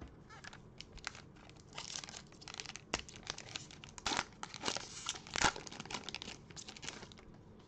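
Foil wrapper of a Panini Prizm basketball card pack crinkling and tearing as gloved hands rip it open: a run of irregular crackles, the loudest about four and five and a half seconds in.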